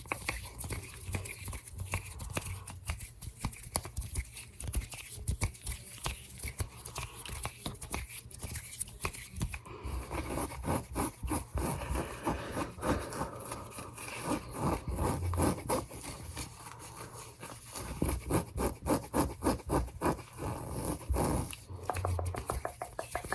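Fingernails tapping and scratching on small trinkets: a long series of light, quick taps, coming in faster runs near the end.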